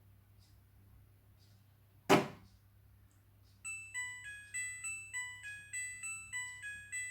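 Front-loading washing machine (Midea) at the end of its wash cycle: a single loud clack about two seconds in, then the machine's electronic beeper plays its end-of-cycle tune of about eleven short notes at changing pitches.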